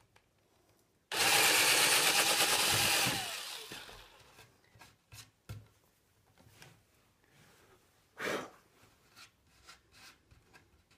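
Cordless drill running at reduced speed for about two seconds as a 5.5 mm wood bit widens a bolt hole through the tail of a skateboard deck, then winding down. Afterwards, a few light knocks as the board is handled.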